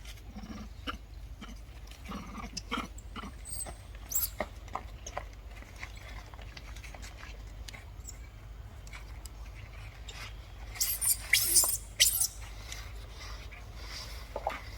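Baby monkey making short, high squeaks and squeals, loudest in a quick cluster about eleven to twelve seconds in, with scattered small clicks and rustles between.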